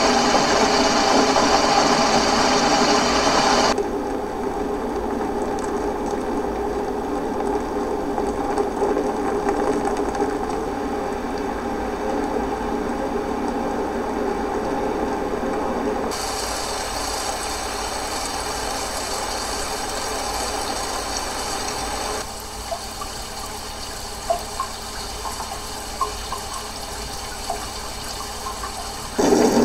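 Recorded water sound effects played one after another, each cut off abruptly for the next. A loud rushing sound changes to another about four seconds in, again at about sixteen seconds, and at about twenty-two seconds gives way to a quieter stretch with scattered sharp clicks. A louder water sound starts just before the end.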